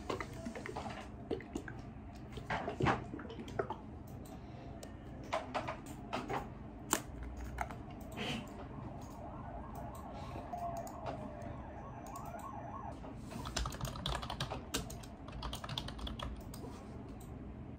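Computer keyboard typing: scattered, irregular clicks and taps, coming in a quicker run near the end, over a low steady hum.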